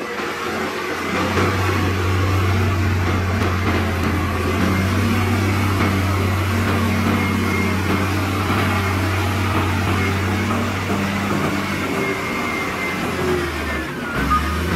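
Heavy diesel engine of earthmoving equipment running steadily at a low, even pitch, briefly dropping off near the end. A reversing alarm starts beeping right at the end.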